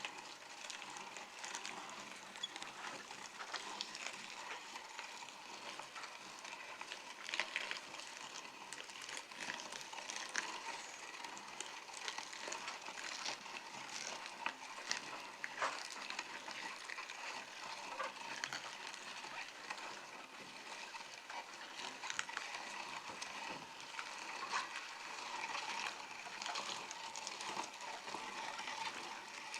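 Meat grinder crushing peppers: a steady wet crackling with frequent sharp crunches and clicks scattered through it.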